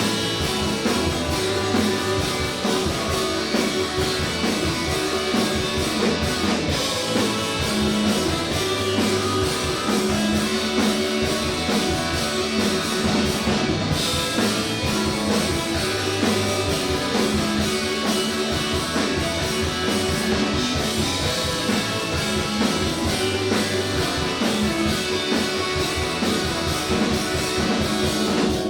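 Live indie rock band playing a song, with guitars and a drum kit at a steady driving beat.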